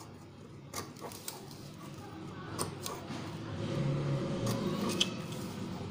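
Newspaper glued over cardboard being handled and its corner cut off: paper rustling with a few sharp clicks, over a low hum that swells in the second half.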